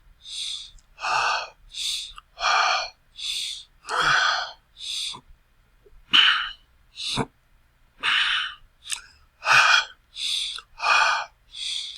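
A person panting hard, out of breath: quick, noisy breaths in and out in a steady alternation, roughly one breath every three-quarters of a second, with a short pause about halfway and a slight throaty edge on a few of the breaths.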